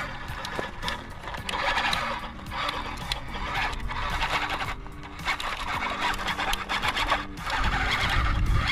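The electric motor and gears of a 1:12 scale LDRC LD-P06 Unimog RC truck whine as it crawls uphill, starting and stopping every second or so with the throttle, over background music.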